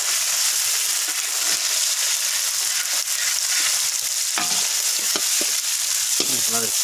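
Hot oil sizzling steadily in a pan as a batch of banana-flower fry is cooked, with a ladle stirring and knocking against the pan a few times about midway.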